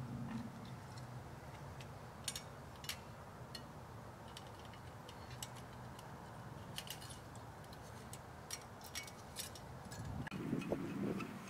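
Scattered light metallic clicks and taps as the parts of a Svea 123 brass camp stove and its brass windscreen are handled, with a low muffled rumble about ten seconds in.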